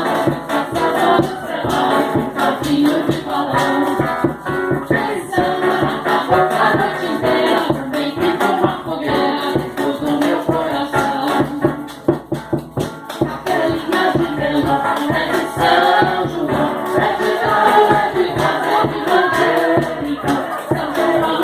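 A group of voices singing a Brazilian festa junina song in Portuguese together, with a shaker rattling along in rhythm.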